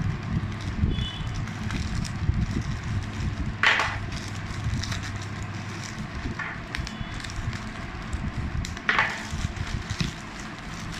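Plastic courier mailer bag crinkling and rustling as it is handled and slit open with a kitchen knife, with two brief louder tearing sounds, one about a third of the way in and one near the end.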